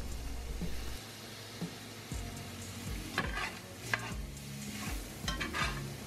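Ground beef and onions sizzling in a frying pan while a slotted spatula stirs and scrapes through them, with a few louder scrapes from about three seconds in.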